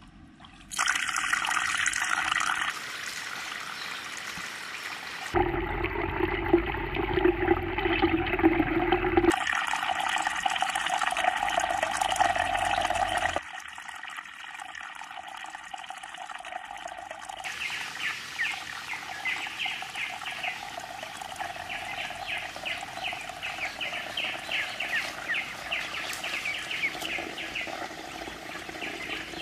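Water pouring and splashing from a fountain spout into a small garden pond, its sound changing abruptly several times. In the second half, quick high-pitched chirps repeat over the softer flow of water.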